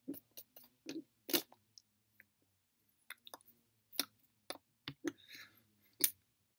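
A run of about fifteen short, sharp clicks and smacks at uneven spacing, the loudest about one and a half seconds in and again near the end, with a faint low hum between them.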